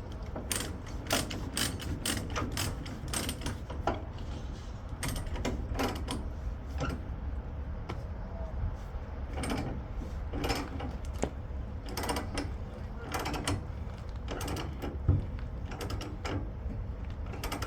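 Ratchet chain binder being cranked to tighten a tie-down chain, clicking repeatedly in short runs of strokes.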